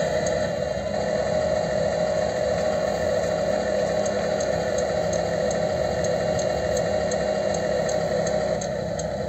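RC truck's electronic sound module playing a simulated diesel engine at a steady idle through its small speaker, with a light regular ticking over it.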